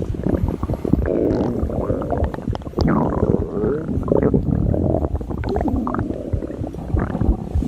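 A human stomach growling: a continuous run of low rumbles and crackling gurgles with no pauses.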